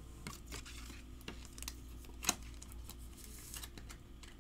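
Faint handling of trading cards and a clear plastic card holder: soft rustles and scattered light plastic clicks, with one sharper click about halfway through.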